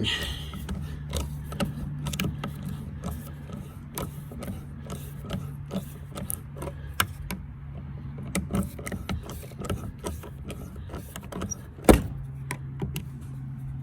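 Power driver motor running steadily at low speed, backing old painted screws out of a door closer's mounting, with scattered clicks and rattles of metal parts. A single sharp knock comes about twelve seconds in.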